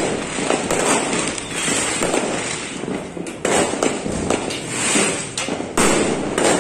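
Fireworks going off in quick succession: a dense, continuous run of bangs and crackles, with a louder burst near the end.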